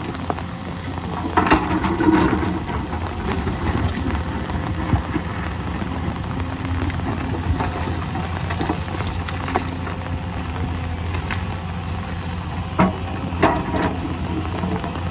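Hyundai crawler excavator's diesel engine running steadily under digging load, with scattered knocks and scrapes of the steel bucket and rock, loudest a couple of seconds before the end.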